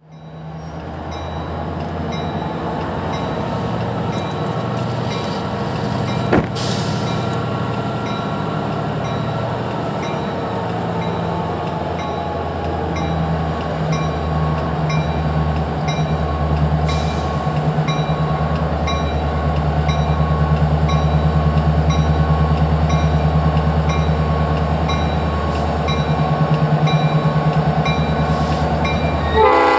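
Railroad crossing bell ringing steadily while an approaching diesel locomotive's engine rumble grows louder. There is a single sharp click about six seconds in, and the locomotive's horn starts sounding at the very end.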